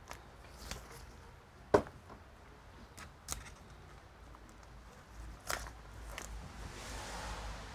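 Scattered clicks and taps of a laptop's plastic and metal parts and small tools being handled during disassembly. The sharpest click comes about two seconds in, and there is a soft rustle near the end.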